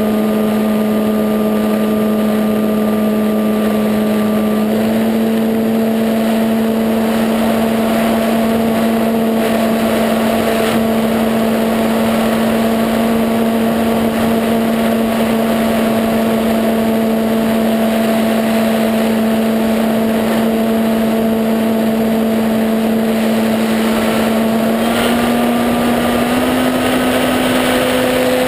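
E-flite Apprentice RC trainer plane's electric motor and propeller running in flight, a steady hum with overtones over rushing airflow noise. The pitch steps up slightly about five seconds in and again near the end as the motor speeds up.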